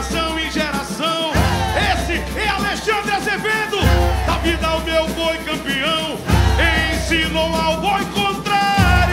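Boi-bumbá toada playing, with a gliding sung melody over long, deep bass notes that change about every two and a half seconds.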